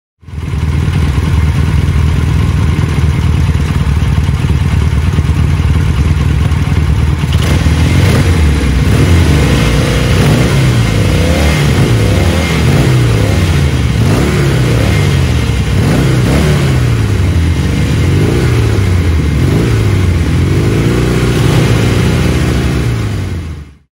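Norton 650SS parallel-twin motorcycle engine idling through its mufflers, then from about seven seconds in revved up and down again and again in short throttle blips.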